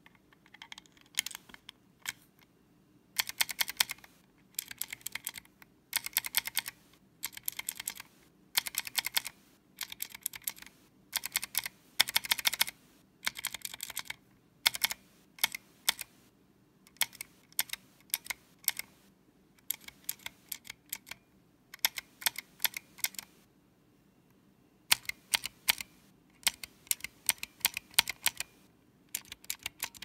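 Clicky mechanical keyboard switch, a vintage Cherry MX Pale Blue stem in a transparent Gateron housing with a 62 g spring, being typed on: sharp clicks in quick bursts of about a second with short gaps, and a longer pause about three-quarters of the way through.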